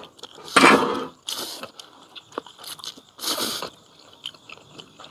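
A person slurping ramen noodles from a bowl: three loud hissing slurps, with quieter chewing between.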